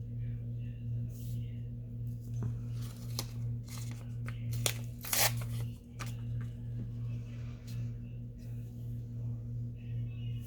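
Paper being handled and torn, with a short tearing sound about five seconds in and scattered light clicks and taps, over a steady low hum.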